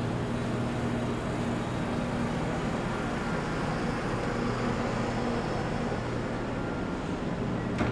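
Steady low hum and hiss of a ship's onboard machinery and ventilation, with a short click near the end.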